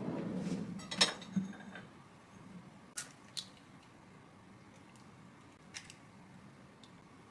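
A kitchen drawer sliding, then a small ceramic bowl set down on a stone counter with a sharp clack about a second in. Around three seconds in come two sharp taps as an egg is cracked.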